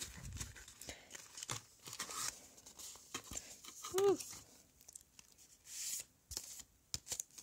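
Paper rustling and crinkling as printed cards and tissue-paper packing are handled in a cardboard box, with scattered light clicks and taps. A brief pitched sound about four seconds in is the loudest moment.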